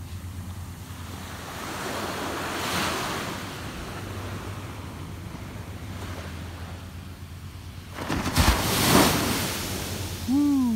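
Ocean surf: small waves breaking and washing up a sandy beach, swelling twice, most strongly about eight seconds in, with wind buffeting the microphone.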